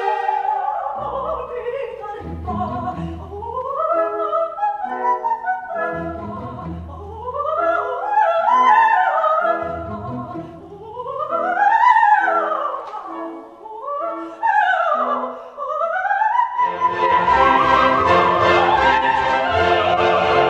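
Female opera voice singing rapid coloratura runs, fast scales sweeping up and down, over an orchestra holding low chords. About three-quarters of the way through, the orchestra swells into a louder, fuller passage under a sustained sung line.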